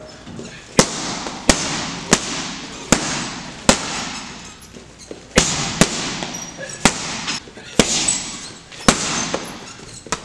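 Boxing gloves striking a teardrop heavy bag in hard power punches and quick combinations: about a dozen sharp smacks, some in rapid pairs, each followed by a short echoing tail.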